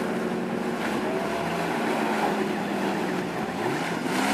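Off-road 4x4's engine running under load, its pitch rising in the last second as it revs up.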